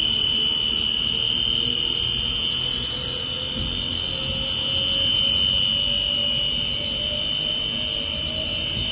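A 1600-litre double sigma-blade kneader mixer running forward as its speed is raised: a drive whine climbs slowly in pitch over a low rumble. A steady high-pitched whine sounds throughout.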